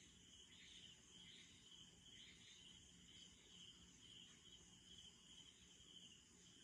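Faint chorus of night insects, crickets chirring steadily, with a high call that pulses a little more than once a second.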